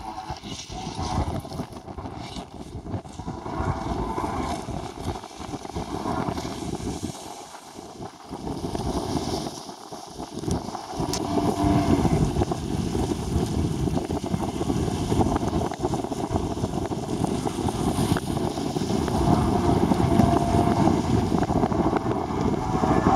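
Wind buffeting the microphone in a heavy, gusting rumble, with the Kawasaki Ultra 150 jet ski's two-stroke engine faintly heard over it, its pitch rising and falling as the craft runs and turns on the water.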